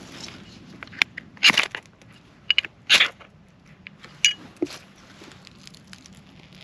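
Ferro rod scraped hard with the spine of a knife, five or six sharp rasping strokes, the loudest two about one and a half and three seconds in, showering sparks onto birch bark tinder.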